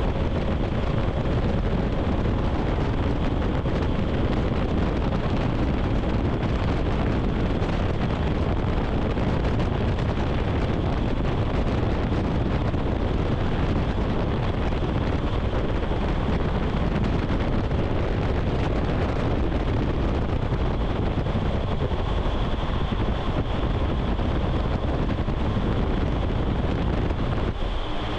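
Steady rush of air from an indoor skydiving vertical wind tunnel: the even noise of its fans and airflow, with a faint high whine.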